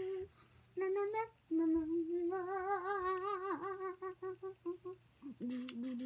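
A child humming with closed lips: long held notes at a fairly even pitch, wavering in the middle and dipping briefly, broken by a few short pauses.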